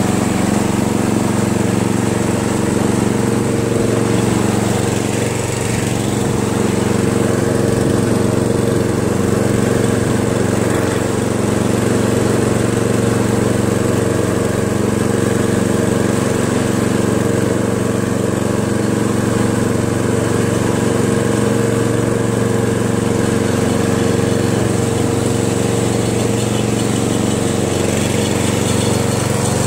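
Riding mower's small gasoline engine running steadily at an even speed.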